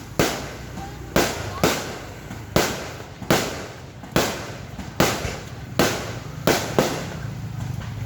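Fireworks exploding: about ten sharp bangs, irregularly spaced half a second to a second apart, each trailing off in a short echo.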